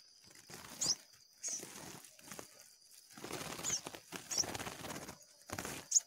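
A caught bird fluttering inside a cloth sack, with irregular rustling and flapping and a few short high chirps. A steady high insect trill runs underneath.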